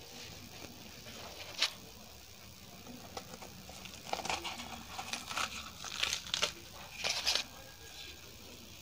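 A puffed poori being handled and torn apart by hand: a single light click about a second and a half in, then several short bursts of crisp crackling and tearing in the second half.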